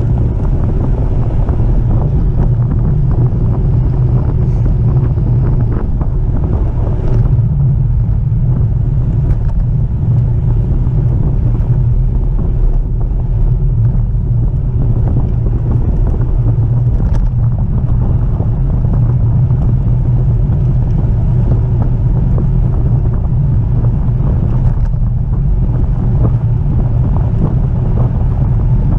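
Wind buffeting the microphone of a camera riding along on a moving bicycle: a loud, steady low rumble.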